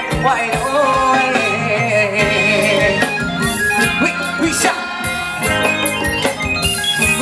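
Live band playing Thai ramwong dance music over a PA: a drum kit keeps a steady beat under electric guitars and a wavering lead melody.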